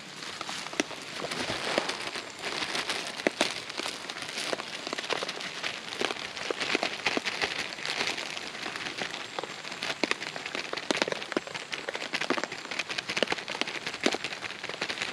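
Heavy rain falling on a tarp shelter: a steady spatter of drops with many sharp individual drop hits.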